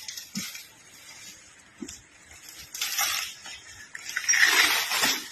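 Elephant at its fodder of palm leaves, giving three bursts of rustling, crunching noise; the last is the loudest and longest, about four seconds in.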